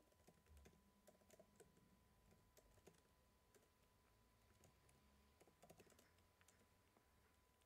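Faint, irregular keystrokes on a computer keyboard, coming in small clusters with short pauses between them.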